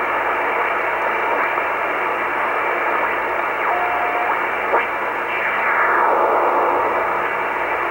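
Shortwave receiver hiss and static while tuning through utility signals in the lower 17 MHz band, with a short steady whistle about halfway in and gliding whistles as the tuning moves on.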